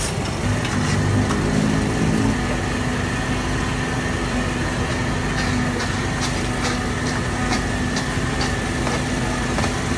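Small portable generator engine running with a steady hum, over the sizzle of butter on a hot flat-top griddle. Sharp light clicks of metal tongs and skewers against the griddle come in the second half.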